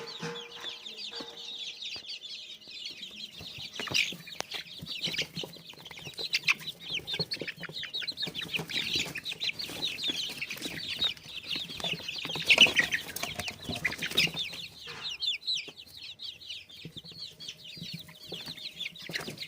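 A flock of desi free-range chickens calling: many short, high calls overlapping continuously, busiest and loudest about twelve to fourteen seconds in.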